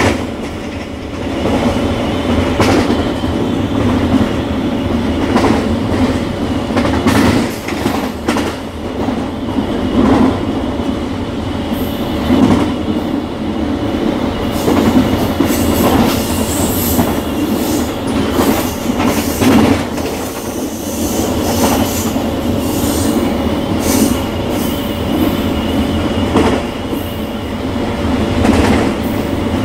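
Indian Railways locomotive heard from inside its cab while running on the main line: a steady loud running noise with a constant hum, and frequent knocks as the wheels pass over rail joints.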